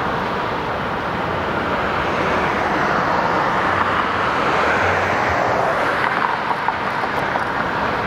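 Airplane passing overhead: a steady rushing noise that grows louder toward the middle and eases slightly near the end.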